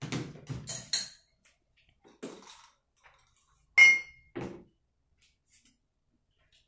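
Glassware and other objects being picked up and set down on a sideboard tray: a quick cluster of knocks and clinks at the start, then a few separate ones. The loudest, about four seconds in, is a glass clink that rings briefly.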